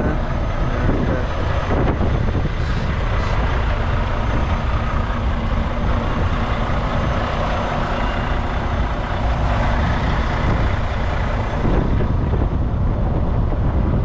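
Tractor-trailer truck's engine running steadily, a loud, even rumble with no breaks.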